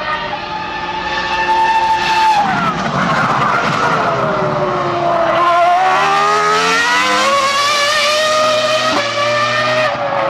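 Ferrari Formula One car's V10 engine running at high revs. The note holds high, falls steeply about two seconds in, then climbs again, with a sudden gear change about nine seconds in.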